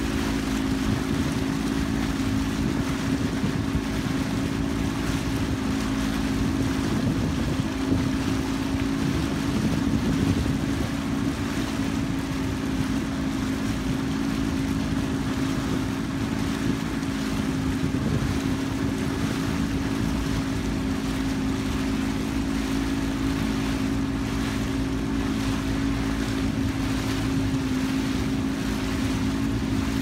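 Boat motor running steadily, a constant hum that holds one pitch, over a continuous rushing noise.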